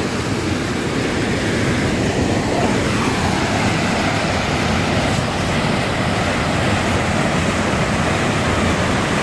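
Mountain creek cascading over mossy boulders: a steady rush of whitewater.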